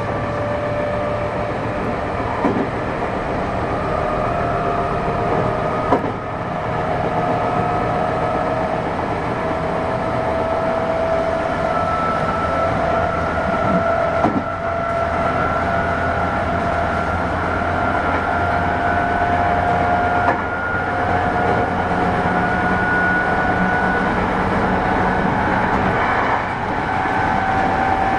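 Onboard running sound inside a JR West 221 series motor car (KuMoHa 221-55), heard under way. The traction motors and gears whine in a pitch that slowly rises as the train gains speed, over a steady wheel-on-rail rumble with a few single knocks.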